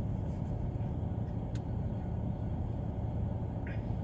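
Steady low background rumble, with a faint click about one and a half seconds in.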